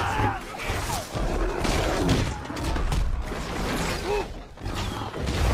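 Dense battle din from a film soundtrack: clattering and crashing impacts, thuds and scattered men's shouts.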